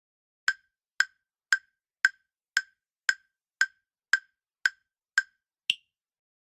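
Quiz countdown-timer sound effect: ten sharp wood-block-like ticks, about two a second, followed by a final higher-pitched tick.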